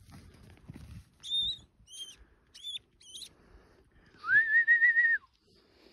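A person whistles one long note that slides up and then holds steady for about a second, near the end. Before it come four short, high chirps, and faint rustling in rough grass at the start.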